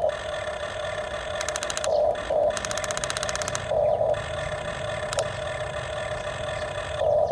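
A toy RC excavator's small electric motor and plastic gearbox whining steadily, swelling louder several times, with two short runs of rapid ratcheting clicks in the first half.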